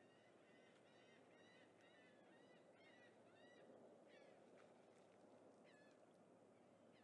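Faint bird calls over near silence: a run of short chirping notes repeated about twice a second, spacing out in the second half.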